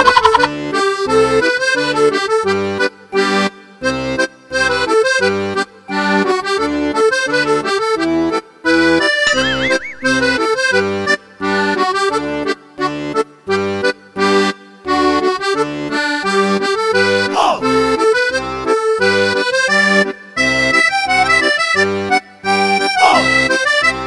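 Lively background music with a steady beat: short bass notes alternating under a melody line, with brief breaks between phrases.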